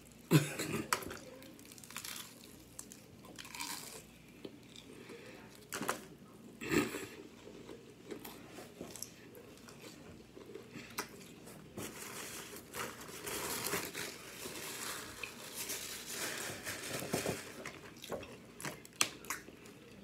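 Crunchy fried onion ring being pulled apart, bitten and chewed close to the microphone: a few sharp crunches in the first seven seconds, then a longer run of crackly chewing in the second half.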